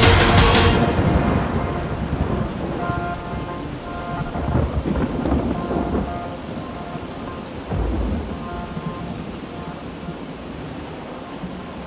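Music cuts off about a second in, leaving rain with rumbles of thunder and a few faint held synth notes, fading out.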